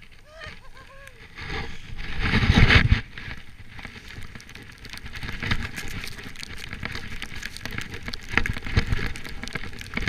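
Skis hissing and swishing through deep powder snow, heard close up from the skier's own camera, with a loud rush about two to three seconds in.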